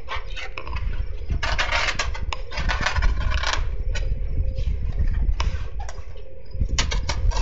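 Utility knife slicing and tearing through woven polypropylene house wrap, scratchy cutting strokes with the longest stretches between one and four seconds in and shorter strokes and clicks after, over a steady low rumble.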